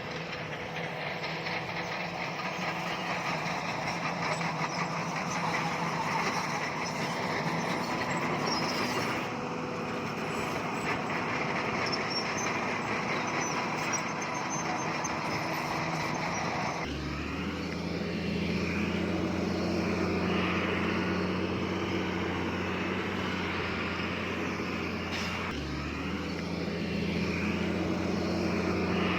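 Heavy diesel earthmoving machinery running, with a dense rattle over the engine noise. About halfway through, a deep, steady engine drone comes in and holds, dipping briefly once near the end.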